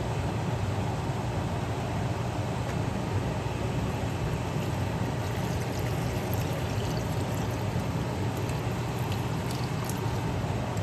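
Steady whooshing hum of a kitchen range-hood fan, with faint crackling ticks in the second half.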